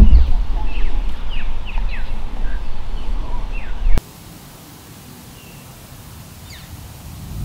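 Birds chirping in short falling calls over a heavy, gusty rumble of wind on the microphone. About four seconds in, the rumble cuts off abruptly, leaving quieter open-air background with a few more bird calls.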